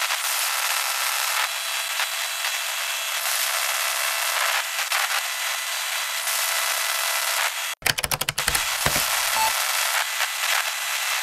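Steady radio static, a thin hiss with crackle. Nearly eight seconds in it cuts out for an instant, then breaks into a quick run of clicks and pops, followed by a short high beep.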